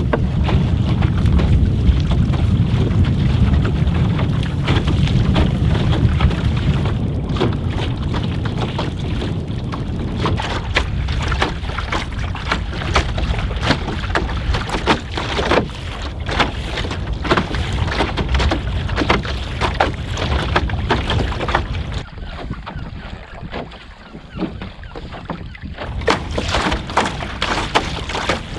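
Water slapping and splashing against the hull of a cedar strip canoe under sail and paddle in choppy water, with wind buffeting the microphone. The wind rumble is heaviest in the first few seconds, then irregular sharp slaps and splashes take over, easing briefly near the end.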